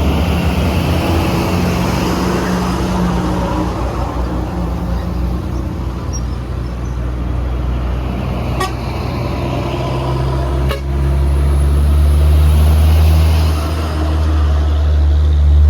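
Heavy truck's diesel engine roaring as it labours up a steep climb, a steady low drone. About eleven seconds in there is a sharp clack, and the engine then runs louder.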